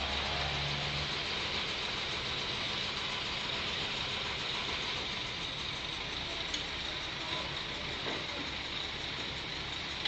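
Heavy machinery engine running steadily at low revs, a constant hum under an even hiss.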